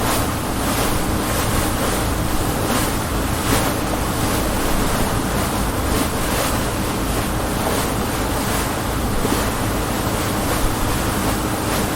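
Motorboat under way: a steady low engine drone beneath rushing, splashing water, with wind buffeting the microphone.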